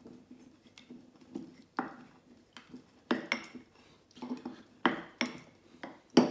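A wooden pestle used as a muddler, knocking and grinding in a glass tumbler as it crushes fresh mint and rosemary with lime juice and sugar syrup. It gives a string of irregular knocks against the glass that come closer together in the second half.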